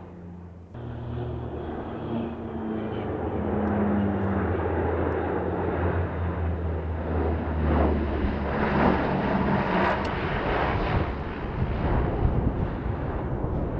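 Lockheed C-130 Hercules air tanker making a low pass with its four turboprop engines: a steady low propeller hum under a rushing roar. The sound swells and is loudest from about eight seconds in as the aircraft passes closest.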